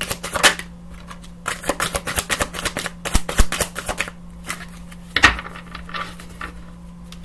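A deck of handwritten message cards being shuffled by hand, a rapid run of papery clicks and flicks, with one louder knock about five seconds in as a card is set down on the wooden table.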